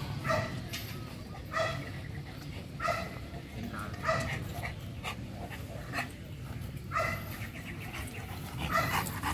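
Dog barking repeatedly: a steady series of short barks, roughly one every second and a bit.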